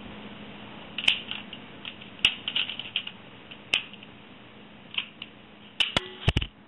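Scattered sharp clicks and taps, a few seconds apart, over a faint steady hum and hiss, with a quick cluster of heavier knocks near the end.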